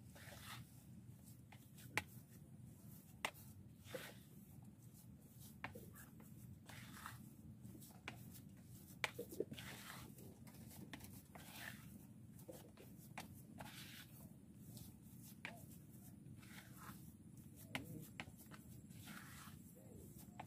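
Faint rustling, soft scraping and scattered small clicks of hands kneading and stirring fishing bait dough until it is evenly mixed, over a low steady background hum.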